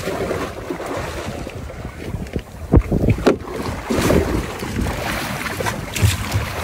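Wind buffeting the microphone over water splashing against the side of a small boat, with two sharp knocks about three seconds in.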